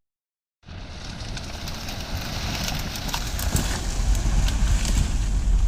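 Outdoor ambience after a brief silence: a steady low rumble typical of wind on the microphone, with scattered small clicks and rustles, growing gradually louder.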